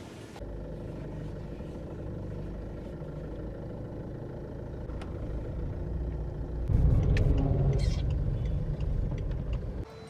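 Ford Figo hatchback running on the road, heard from inside the cabin as a steady low rumble that grows louder about two-thirds of the way in.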